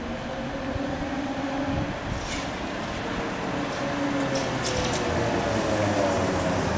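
Škoda 15Tr articulated trolleybus passing close by: a steady whine from its electric traction equipment, in a few tones that drift slightly in pitch, over tyre and road noise.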